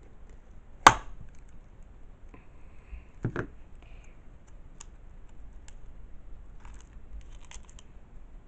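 A plastic slime container being handled and pried at while its stiff lid is worked open: a sharp knock about a second in, a second knock a couple of seconds later, and light plastic clicks.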